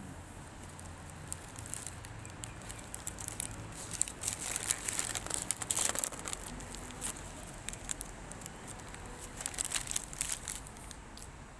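Brown paper pie bag crinkling and crackling as a pie is handled, busiest a few seconds in and again briefly near the end.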